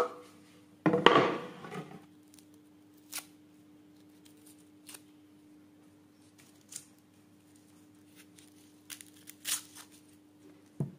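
Hands handling garlic cloves and vegetables on a wooden table and cutting board: a short scraping rustle about a second in, then a scatter of light taps and clicks.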